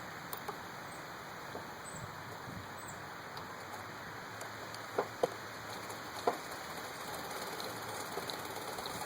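1936 Singer 15-88 treadle sewing machine running under foot power: a steady, rapid patter from the mechanism, with a few sharper clicks about five and six seconds in.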